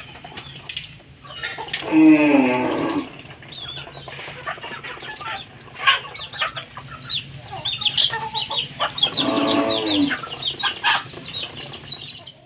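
A flock of chickens with chicks clucking and peeping: many short high calls, with two longer, drawn-out calls falling in pitch, about two seconds in and again around nine seconds.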